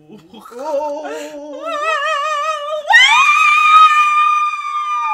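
A woman singing a short run of notes that climbs step by step, then leaping about three seconds in to a loud, very high held note with vibrato that slides down at the end.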